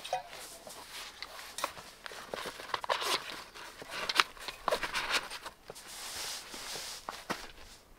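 Handling noise: small objects (a metal water bottle, a phone, a camera grip) being tucked into a camp chair's fabric side pocket, giving scattered light clicks and taps with nylon fabric rustling between them.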